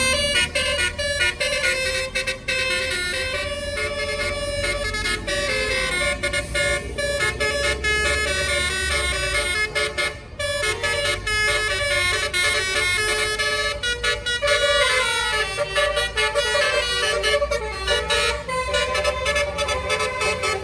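Indonesian bus 'telolet' musical air horn of the basuri type playing a quick melody of stepping notes, with some sliding notes in the second half, over the steady low rumble of the bus's engine.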